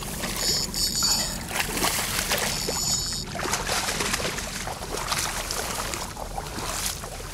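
Water sloshing and splashing as a shot carp is dragged in through a flooded rice paddy, with many small splashes throughout. A high, banded chirring sound comes twice in the first three seconds.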